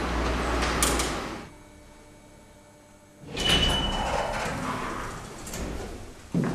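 Street noise with a few clicks as a glass entrance door is opened, then a brief hush. A short high beep sounds and the stainless steel sliding doors of a lift open, with a thump near the end.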